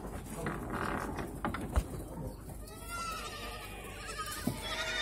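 Boer–West African cross goats bleating as the kids are let out to rejoin their mothers: wavering calls begin a little over halfway in, with another starting near the end. They follow a couple of seconds of busy scuffling and sharp clicks.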